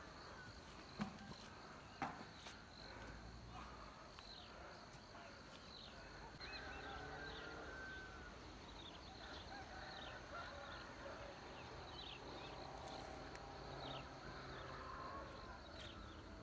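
Faint outdoor ambience of insects with a steady high drone and many short chirping calls from birds or insects. Two brief sharp knocks come about one and two seconds in.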